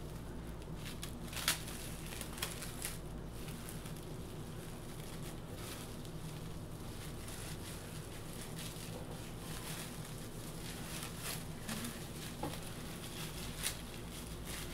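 Plastic cling wrap crinkling in short, scattered crackles as it is gathered and twisted by hand around a soft cheese ball, over a low steady hum.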